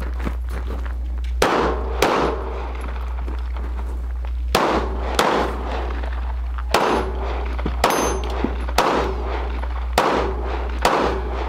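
Pistol fire from a .380 Glock during a practical-shooting stage: nine sharp shots in irregular groups, some as quick pairs about half a second apart, each with a short echo.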